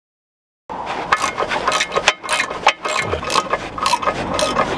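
After a short silence, a ratchet wrench and socket works a lower control-arm-to-ball-joint bolt, with quick metallic clicks and knocks about four a second. The bolt keeps turning without coming off because its welded nut spins freely.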